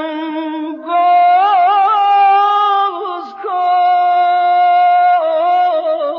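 Unaccompanied solo voice singing Persian classical avaz in the Afshari mode: long held notes broken by quick wavering ornamental turns, with a short breath about three seconds in.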